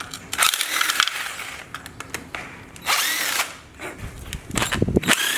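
Handheld power tool driving fasteners on an engine being torn down, run in three short bursts with its motor whine rising and falling each time, and sharp clicks of metal parts between them.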